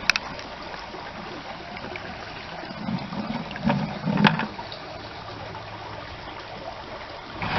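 Water trickling steadily as it is poured out of a bucket of small caught creek fish, with a few soft bumps and a small splash about three to four seconds in.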